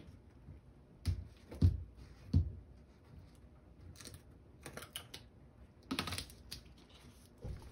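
Handling noises on a tabletop: three dull knocks early on, scattered light clicks and rustles, and one more knock near the end.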